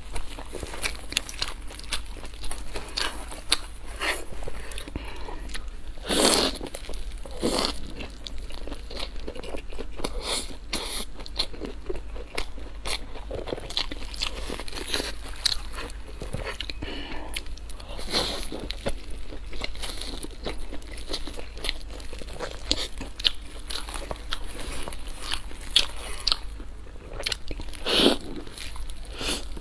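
Close-miked eating: biting into fried buns and chewing, with crunchy bites and many small wet mouth clicks. The loudest crunches come about six seconds in, about seven and a half seconds in, and near the end.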